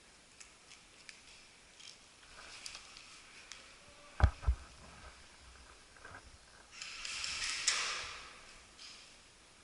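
Two sharp thumps close together about four seconds in, among faint scattered clicks and rustles, then a longer rustle lasting about a second and a half.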